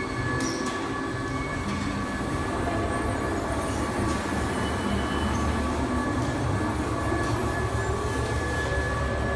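Large carousel's machinery running: a steady low mechanical rumble with a thin, constant whine above it.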